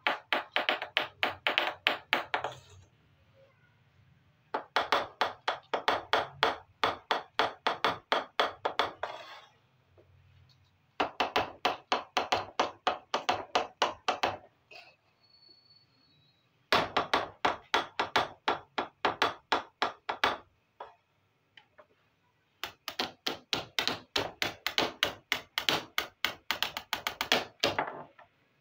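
Small plastic toy dishes tapped quickly and repeatedly against a hard tabletop, in runs of evenly spaced taps, about four or five a second, each run lasting three to five seconds with short pauses between.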